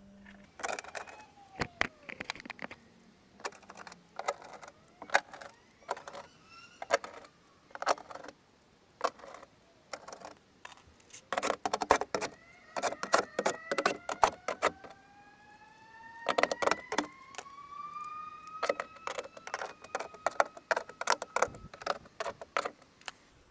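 Bolts being fitted and tightened into a car door with a hand tool: runs of quick metallic clicks. From about halfway through, a squeal rises slowly in pitch over several seconds, twice.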